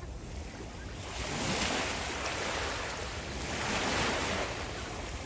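Small waves lapping and washing up on a sandy beach. The surf swells twice, about a second in and again near four seconds.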